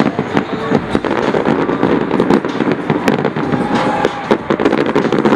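Fireworks display: aerial shells bursting in many sharp bangs in quick succession over a continuous din.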